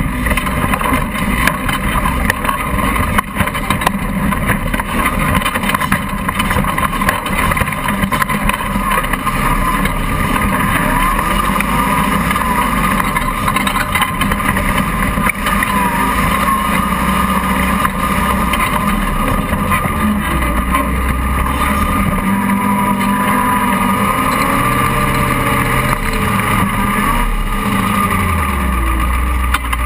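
Engine of a tube-chassis 4x4 offroad buggy running under load and revving up and down as it crawls over rocks and through mud, heard from a camera mounted on the buggy, with frequent knocks from the chassis.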